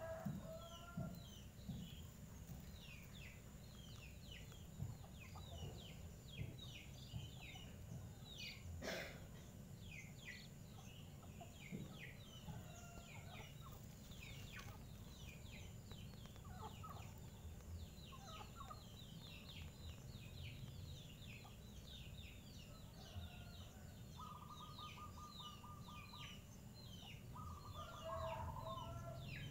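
Faint outdoor birdsong: many short, high chirps overlapping throughout. A short, rapid trill comes about three-quarters of the way through, and a few lower calls near the end.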